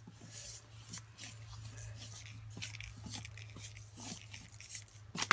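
Paper hockey sticks scraping and tapping against each other, the puck and the wooden tabletop: faint irregular clicks and rustles, with a sharper click near the end.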